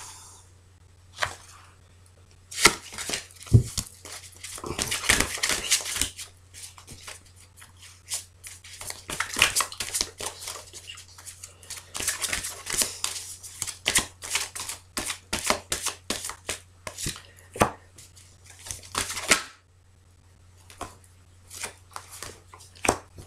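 A deck of oracle cards shuffled by hand: a long run of quick card snaps and rustles, a short pause, then a few lighter clicks as cards are drawn and laid on a velvet cloth.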